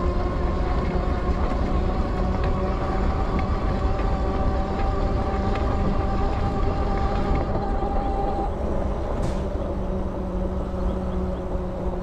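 Electric fat-tire bike riding on pavement: a steady motor whine over a low rumble of the heavy-duty 20x4-inch tires rolling. One strand of the whine drops out about eight seconds in.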